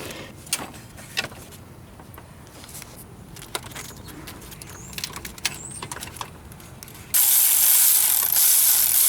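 Light metallic clicks and taps of hand tools and a bolt at the starter mounting. About seven seconds in, a loud steady hissing whir starts and keeps going.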